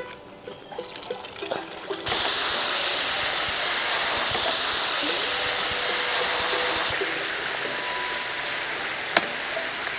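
Hot oil in a wok starts sizzling loudly about two seconds in as a whole bunch of green bananas goes in for deep-frying, then keeps frying with a steady hiss.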